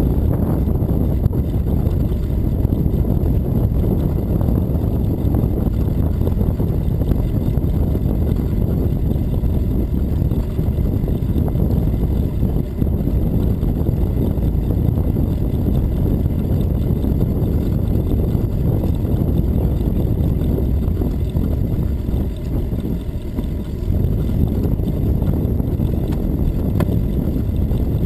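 Wind buffeting the microphone of a camera on a moving bicycle: a steady low rumble with no clear tones. It eases for a moment about three-quarters of the way through.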